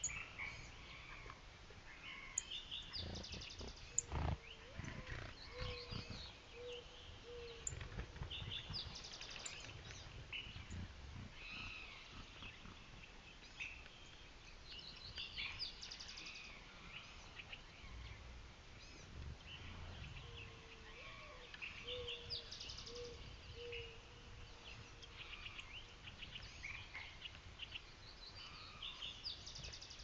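Mixed morning birdsong: several songbirds chirping and trilling over one another. A mourning dove coos a low run of notes twice, about five seconds in and again past twenty seconds, with soft low thumps of bird wings fluttering.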